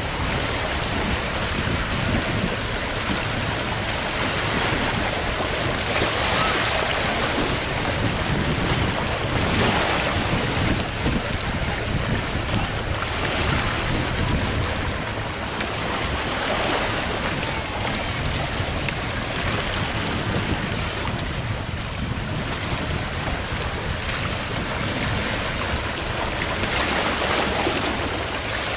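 Wind rushing over the microphone with waves washing on the water, swelling every few seconds.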